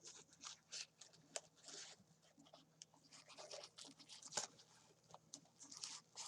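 Faint handling noises of cardboard packaging and a storage case: scattered light clicks and taps with a few short scrapes and rustles.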